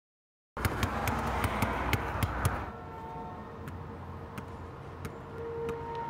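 A wash of distant traffic noise with scattered sharp ticks, loudest for about two seconds after a short silence. It then drops quieter, and a steady humming tone swells in near the end.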